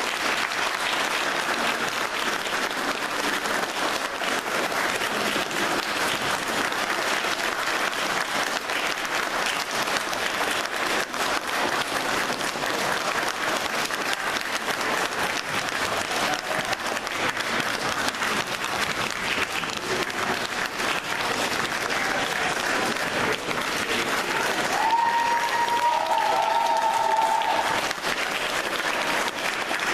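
Audience applauding steadily. Near the end, a high held tone rises above the clapping for a couple of seconds and then steps down in pitch.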